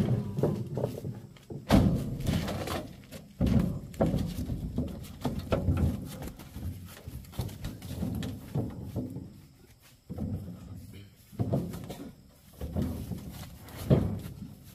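A series of irregular dull thuds and knocks, about a dozen, each starting sharply and dying away over a second or so.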